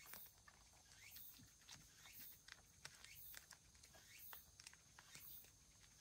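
Cat licking food from a shallow tray: faint, wet licking sounds repeating one or two times a second.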